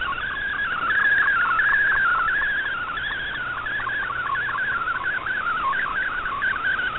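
Shortwave digital-mode picture transmission in MFSK64 received on an Icom IC-R8600: a whistle-like tone that wavers rapidly up and down, carrying image data, over a faint hiss of static.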